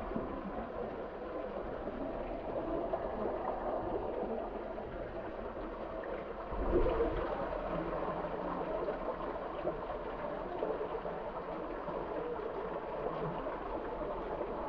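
Hot-spring water running and trickling in a rock cave, a steady wash that grows briefly louder about six and a half seconds in.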